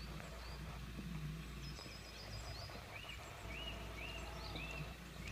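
Small birds calling: short high arching chirps repeating about every half second, and a quick run of very high notes about two seconds in. A faint low rumble runs underneath.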